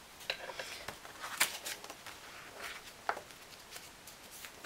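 Paperback book being handled, closed and lifted off paper sheets: soft paper rustling with a few light clicks and knocks, the sharpest about a second and a half in.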